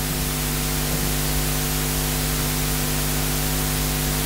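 Steady hiss with a low electrical hum of several steady tones under it: the background noise of the recording, with no other sound standing out.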